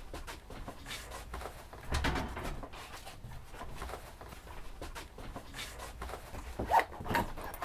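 Scattered small knocks and clatter of objects and tools being handled at a workbench, with a louder rustling stretch about two seconds in and a sharp short sound near the end.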